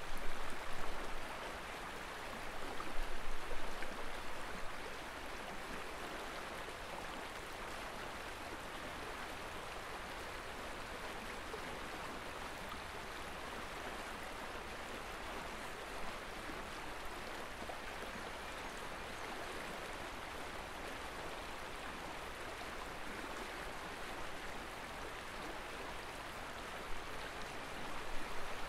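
Steady rushing of running river water, with a few louder swells in the first few seconds and again just before the end.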